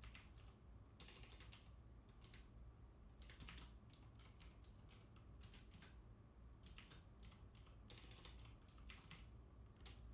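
Typing on a computer keyboard: irregular bunches of quick key clicks, with short pauses between, over a faint steady low hum.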